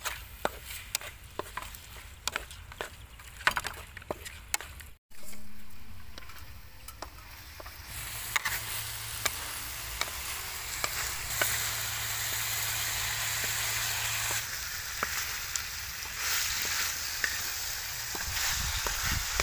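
Frog pieces sizzling as they are stir-fried in a metal wok, with a wooden spatula scraping and knocking against the pan in quick strokes. From about eight seconds in the sizzle grows louder and steadier.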